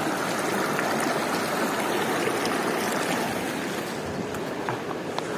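River water rushing over stones and shallow rocks, a steady close rushing noise that grows slightly fainter about four seconds in.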